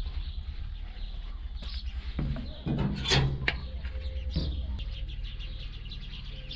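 UTB 650 tractor's diesel engine running with a steady, even low throb, and a louder burst about three seconds in. Birds chirp lightly over it.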